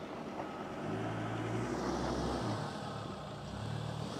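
Ford Ranger's 3.2 turbo-diesel, in four low, running at low revs while crawling up a rocky hill. Its low note swells and eases a couple of times as the driver feeds the throttle.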